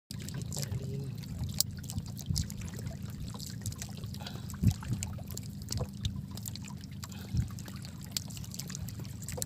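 Water trickling and dripping while a wet fishing net is handled on a boat deck, over a steady low rumble, with scattered clicks and a few sharp knocks.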